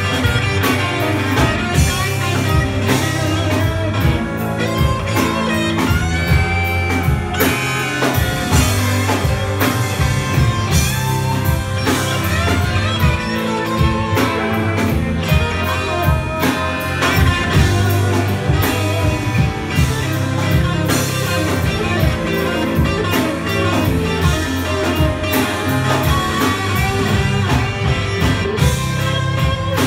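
A rock band playing live, electric guitars over a drum kit, loud and dense.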